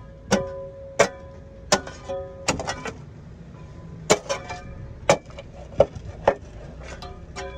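Steel mattock chopping into root-matted earth, a run of repeated sharp blows, each with a short metallic ring, with a brief pause about three seconds in.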